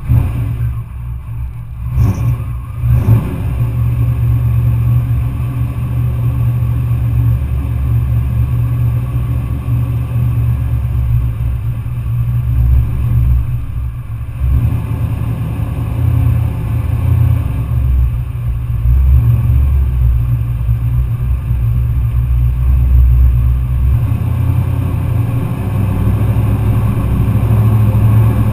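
Pickup truck engine running close to a hood-mounted camera: a steady low idle with a couple of short throttle blips about two and three seconds in, growing louder near the end as the truck moves off.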